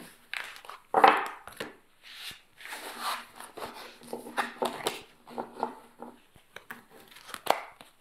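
Oracle cards being gathered up off a cloth-covered table and stacked: a run of quick, irregular card scrapes, slides and taps, ending with the deck being squared in the hands.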